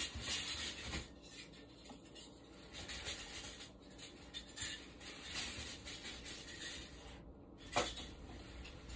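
Faint, scattered rustling and small clicks of someone handling things off to the side, with one sharp knock a little before the end.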